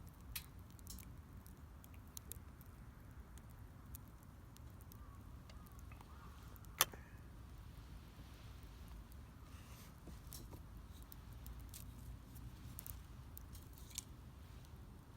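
Wood fire crackling: irregular sharp pops and snaps, the loudest about seven seconds in, over a low steady rumble.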